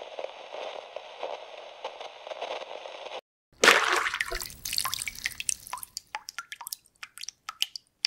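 A steady hiss for about three seconds that cuts off abruptly. Then a loud liquid splash, followed by scattered drips that thin out and fade.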